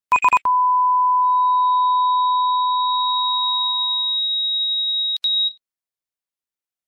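Electronic sine-wave beep tones. Two quick beeps are followed by a steady beep lasting about four seconds. A second, higher steady tone joins about a second in, runs past the first and cuts off with a click a little after five seconds.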